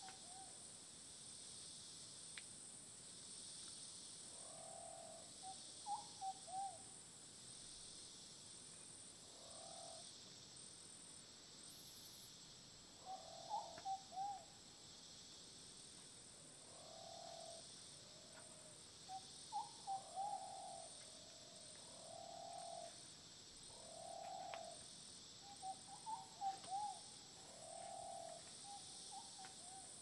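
Faint rainforest animal calls: a soft hooting call repeats every few seconds, and four quick runs of short chirping notes break in. Under them runs a steady, slowly pulsing drone of insects.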